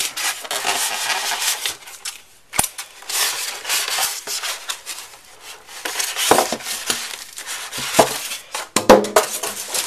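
Plastic bag and foam packing rustling and crinkling as a boxed monitor is handled and pulled free, with a few sharp knocks, the loudest near the end.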